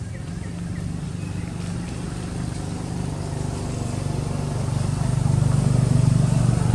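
A motor vehicle's engine running with a steady low hum, getting louder over the last couple of seconds as it comes closer.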